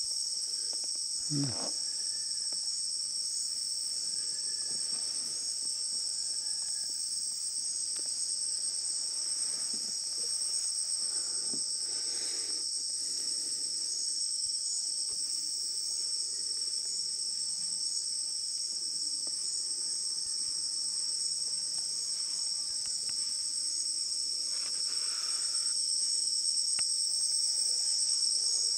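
Dense, steady chorus of rainforest insects, a high-pitched unbroken drone that grows slightly louder near the end.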